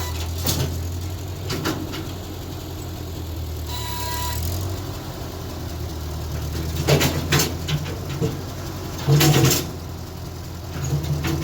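An engine running steadily, with several loud clunks and knocks over it; the loudest cluster comes about nine seconds in.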